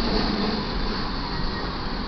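Intermodal freight train's cars rolling past on the rails: a steady rumble of wheels on track.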